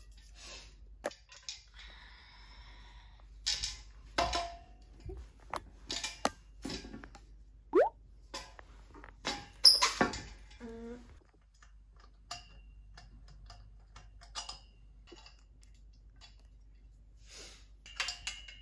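Scattered clicks, knocks and light handling noises of small objects, irregular and of varied loudness, with a short rising squeak about eight seconds in.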